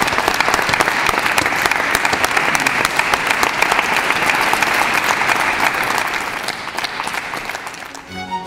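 Audience applauding: dense, steady clapping that thins out and fades near the end.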